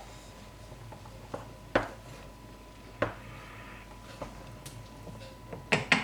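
Sparse kitchen clatter: a few separate light knocks and clinks, roughly a second or two apart, with a quick run of clicks near the end.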